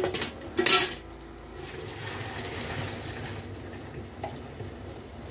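Metal kitchen utensils clinking against a metal cooking pot: a few sharp clinks in the first second, then a soft steady hiss for a couple of seconds and one faint click about four seconds in.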